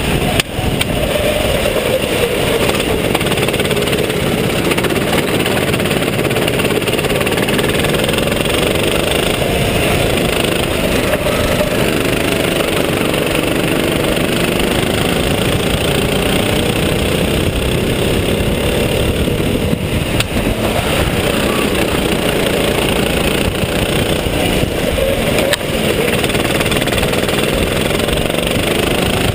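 Sodi RT8 rental kart engine running at racing speed, heard up close from the driver's seat, its note rising and falling again and again as the driver accelerates and lifts through the corners, over heavy wind and road noise. Other karts' engines are audible close behind.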